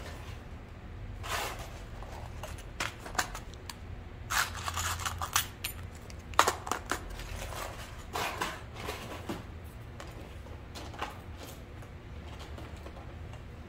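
Hands handling zipper tape and fabric pieces on a sewing table: scattered rustles and small sharp clicks, the loudest click about six and a half seconds in, over a steady low hum.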